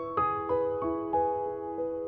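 Background piano music: a gentle melody of single notes, about three a second, stepping downward in pitch.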